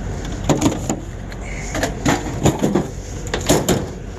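Pieces of scrap metal clanking and knocking as they are handled and tossed onto a pile, in a run of irregular impacts, some with a short metallic ring.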